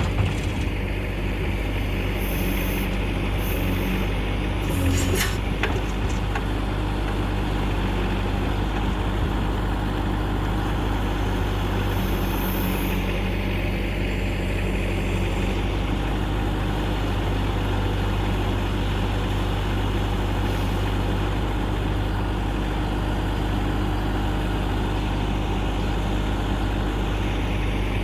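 Bobcat 773 skid steer's turbo diesel engine running steadily, with a short knock about five seconds in.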